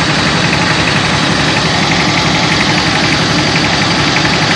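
Vehicle-mounted mobile rice huller running: its engine chugging steadily with a fast, even pulse under a loud, continuous machine din.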